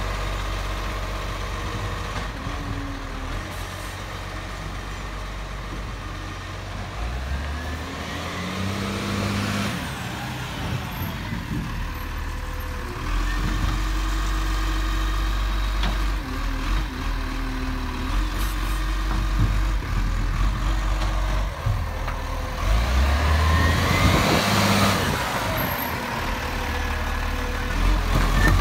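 Diesel engine of a Dennis side-loader garbage truck running close by, revving up twice, about a third of the way in and again near the end.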